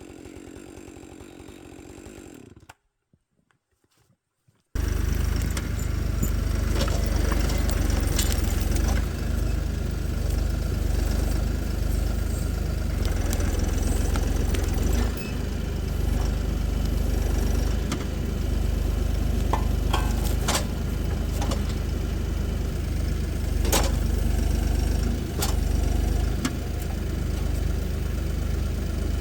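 A vehicle engine running steadily and loudly with a deep rumble, broken by a few short knocks and clunks. It starts suddenly a few seconds in, after a quieter stretch and a moment of near silence.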